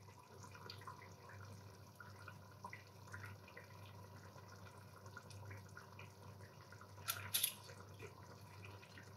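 Pot of squid in its ink simmering on low heat, its sauce bubbling faintly in small scattered pops over a steady low hum. About seven seconds in come two brief, sharper noises.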